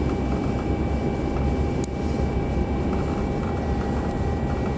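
Airliner cabin noise in flight: a steady deep rumble of the engines and airflow, with a faint steady whine above it.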